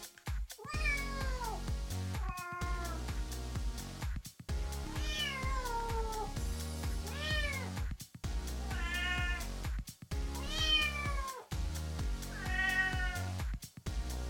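Small kitten meowing repeatedly, about seven high calls a second or two apart, each falling in pitch, over background music.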